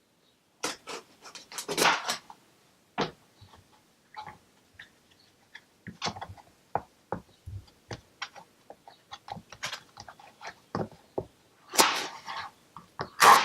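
Kitchen knife chopping vegetables on a cutting board: irregular sharp knocks of the blade hitting the board, with a few brief scraping or rustling sounds.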